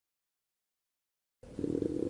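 Dead silence, then near the end an animal's low, rapidly pulsing rumble starts abruptly.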